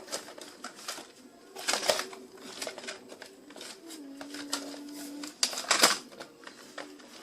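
Irregular clicks, taps and rustles of a small toy being felt and turned over by hand, with a sharper clatter near the end.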